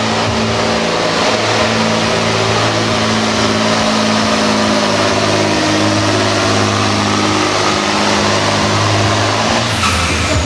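Scania truck's diesel engine running hard under heavy load as it drags a truck-pulling sled, its note held nearly steady before dropping away near the end.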